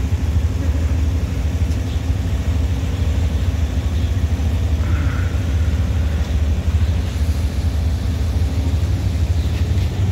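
Quad bike engine running with a steady low drone.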